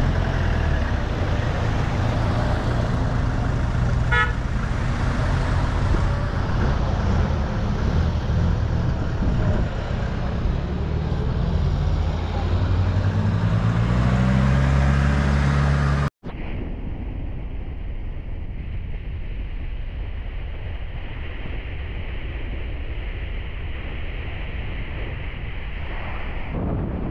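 Pickup truck engine running on the move, rising in pitch as it speeds up shortly before a sudden cut, with a short horn toot about four seconds in. After the cut, steady wind and road noise from riding in the open bed of the moving pickup.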